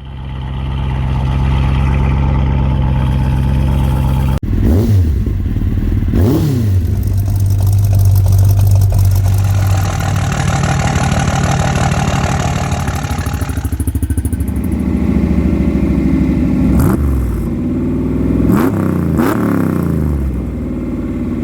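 A car engine running and being revved several times, the pitch rising and falling with each blip, with an abrupt cut about four seconds in.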